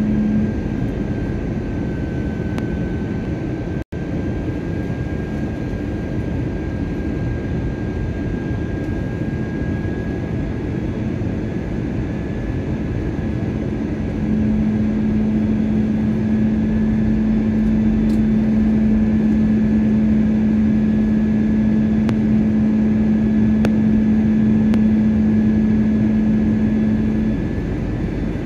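Steady roar of an airliner's cabin on its descent to land, with a steady low hum that grows louder about halfway through and eases off near the end. The sound cuts out for an instant about four seconds in.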